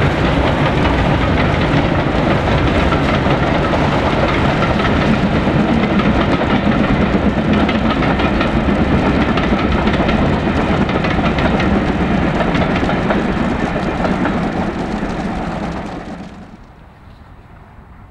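Steam locomotive hauling a train of coaches past: a loud, steady rush of exhaust and rolling wheels. It drops away suddenly about sixteen seconds in to a much quieter background.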